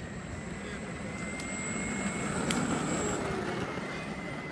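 Yuneec E-GO electric longboard rolling past on asphalt: its wheels rumble louder as it comes close about halfway through, with a faint steady high whine running throughout.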